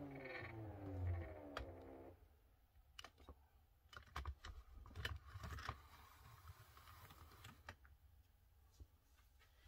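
Motors of a Grace Company Qnique 15 longarm's automation frame whining as they drive the machine across the quilt, the pitch falling steadily until they stop about two seconds in. After that, scattered faint clicks and taps.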